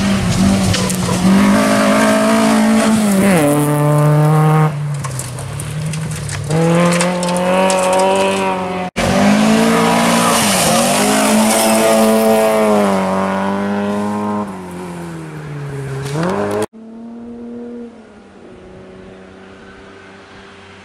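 Rally car engines at high revs on a gravel special stage, pitch dropping and climbing again and again through braking and gear changes as they pass. The sound breaks off abruptly twice, and near the end a fainter engine keeps running.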